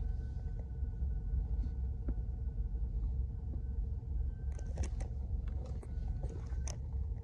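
Low steady rumble with a faint electronic hum and a few clicks, the first about four and a half seconds in: the dead air of a weather radio between its alert tone and the spoken warning.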